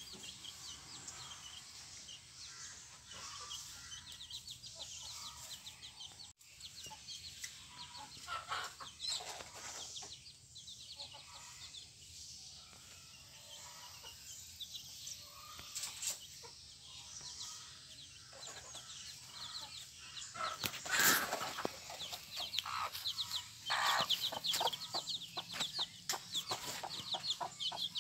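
A brood of about 20-day-old black karinkozhi (Kadaknath) chicks peeping over and over in short, high calls as they feed, with their mother hen clucking among them. A few louder sounds stand out in the last third, the loudest about 21 seconds in.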